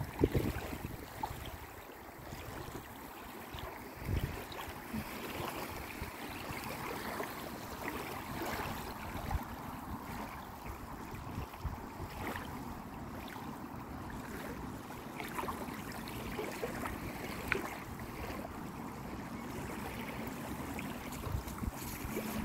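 Small waves lapping and splashing at a stony lake shore, a steady wash of water. Wind buffets the microphone in low thumps just at the start and again about four seconds in.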